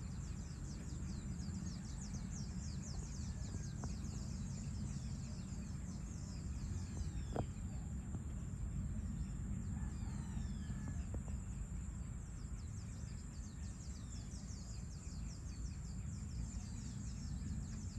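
Outdoor evening ambience: a steady low rumble under dense, rapid high-pitched chirping, with a few bird calls falling in pitch about seven and ten seconds in.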